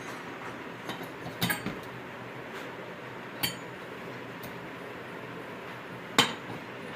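Metal objects clinking and knocking: a few sharp metallic knocks, the loudest near the end, over a steady background noise.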